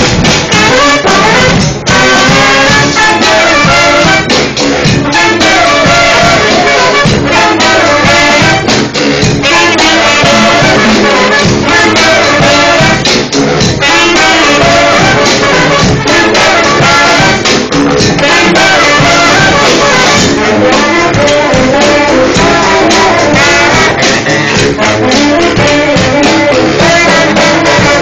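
Marching brass band playing live and loud, close to the microphone: sousaphones and saxophones with trumpets and trombones, over steady percussion hits.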